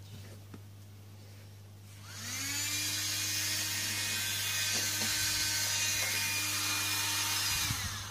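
Small DC motor with a fan blade spinning up about two seconds in with a rising high whine, running steadily at speed, then winding down with a falling whine near the end as the power is cut.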